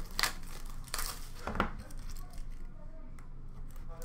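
Hands handling and opening a cardboard trading card box, with crinkling and two sharp knocks, one just after the start and one about a second and a half in.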